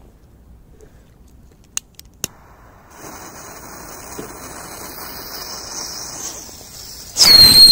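Small 'mouse' firecrackers: a few sharp clicks, then from about three seconds in a lit one hisses and sprays sparks with a thin high whistle. Just past seven seconds a loud whistle sweeps steeply down in pitch.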